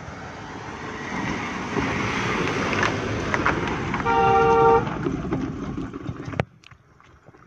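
Maruti Suzuki WagonR driving slowly down a narrow lane and passing close by, its engine and tyre noise growing louder. About four seconds in, a horn honks once for just under a second, the loudest sound here. The vehicle sound stops suddenly near the end.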